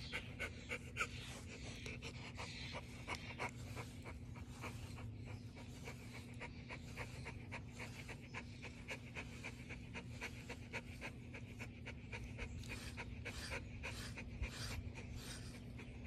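A border collie–blue heeler mix dog panting quickly and rhythmically with his mouth open.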